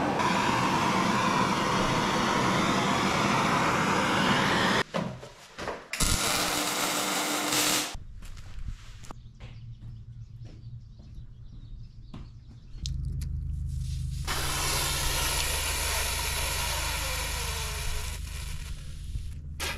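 Gas torch hissing steadily as it heats an exhaust manifold to drive moisture off before the pinhole is re-welded; it stops suddenly about five seconds in. Later come scattered crackles, then a steady low hum with broad hissing again toward the end.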